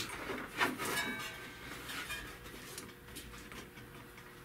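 Engine cooling fan, being wiggled off its hub, knocking against a block of wood wedged in front of the radiator to protect it: a few light knocks and clatter in the first second, then quieter handling noise.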